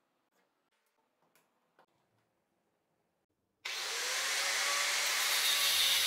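A few faint knocks of handling. About three and a half seconds in, an angle grinder's cut-off disc starts abruptly, cutting into the steel core of a microwave oven transformer with a steady high hiss.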